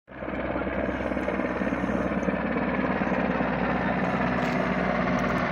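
Air ambulance helicopter flying overhead: a steady, fast beating from the rotor over engine noise.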